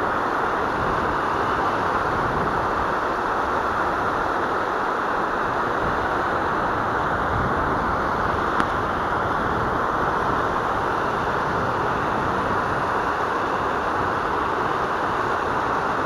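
Steady rush of fast white water over rapids, an even hiss with no change in level. One small click partway through.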